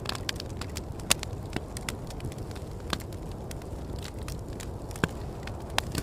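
Wood fire crackling, with a few sharp pops standing out, the loudest about a second in, over a steady low rumble of wind.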